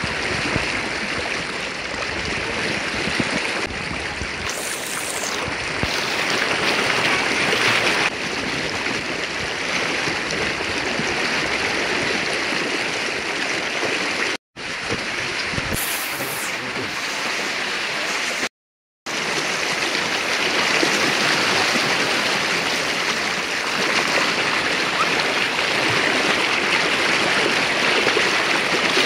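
River water flowing steadily, with two brief dropouts where the sound cuts out completely about halfway through.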